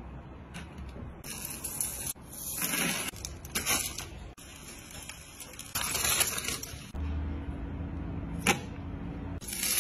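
A run of short rustling, crinkling bursts from handling food and foil, several in a row a second or two apart, with a single sharp click near the end.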